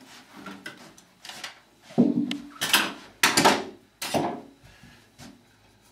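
A run of about five sharp knocks and clatters as the removed sliding-door track is handled and set down, with a few light ticks before them.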